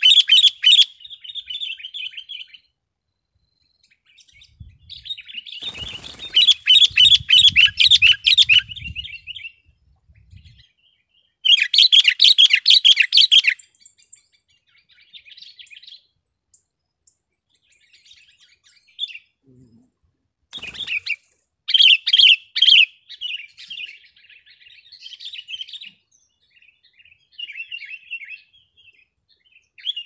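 Sooty-headed bulbul singing in loud bursts of rapid chirping phrases separated by pauses, with softer snatches of song between them. A single sharp click comes about twenty seconds in.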